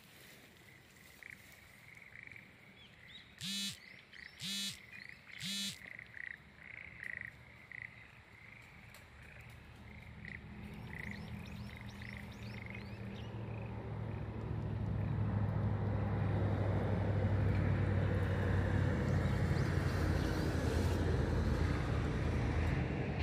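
Three loud frog croaks about a second apart, among softer short repeated calls. From about halfway through, a low engine hum grows louder and then holds steady.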